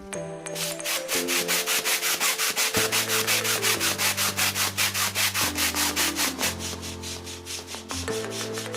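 Rapid, even rasping strokes, about five a second, over background music with held notes and a bass line.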